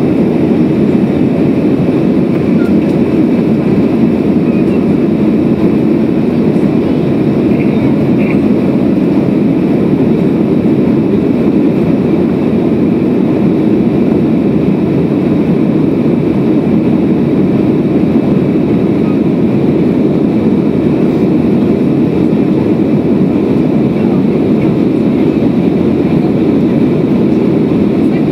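Jet airliner's engine and airflow noise heard inside the passenger cabin during the climb after takeoff: a deep, steady rush that holds one level throughout.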